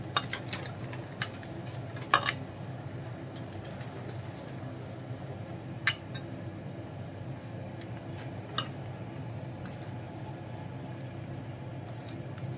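A hand mixing chopped spinach with gram flour in a stainless steel bowl, with about four sharp clinks of the hand knocking against the bowl, spread through the mixing. A steady low hum runs underneath.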